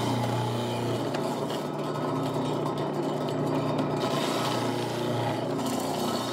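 Food processor motor running steadily while halved zucchini is fed down the chute and shredded by the grating disc: a steady low motor hum under a rough grating sound.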